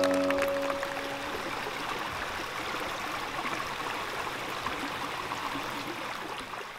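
Steady rushing of a small forest stream, with the last held notes of music dying away in the first second; the water sound fades out near the end.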